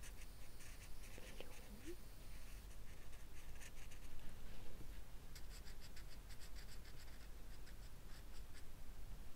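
Felt-tip pen scratching on paper in quick, short colouring strokes, thinning out for a few seconds in the middle before busy strokes resume.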